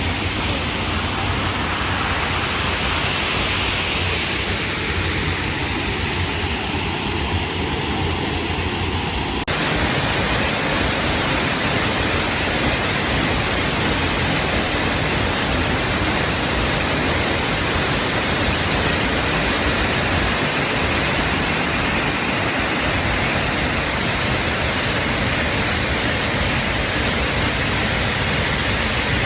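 Steady, loud rush of water falling at a waterfall, with an abrupt change in its tone about a third of the way through.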